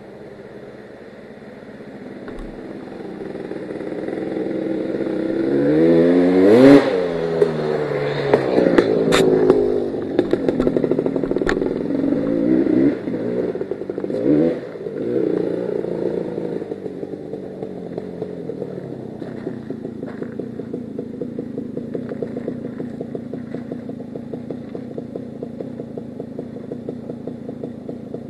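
Two-stroke Yamaha Banshee ATV engine growing louder over the first few seconds, revving up and back down about six seconds in, then settling into a steady idle. A few sharp clicks a few seconds after the rev.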